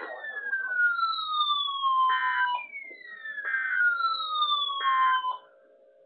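Electronic siren tone made of falling sweeps, each sliding down from high to lower pitch over about a second and a half, with short buzzy beeps between them. It fades out about five seconds in, leaving a faint hum.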